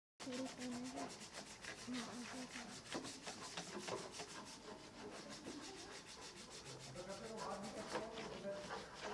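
Small wooden pieces being rubbed down by hand with sandpaper, a continuous run of short, rapid rubbing strokes.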